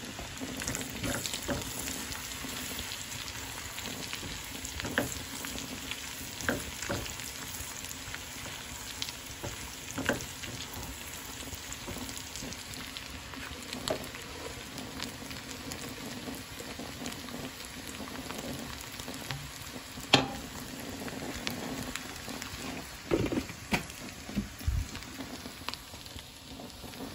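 Desi ghee sizzling steadily in a frying pan as cumin seeds and whole round chillies fry for a tadka (tempering), with a few short sharp clicks scattered through it.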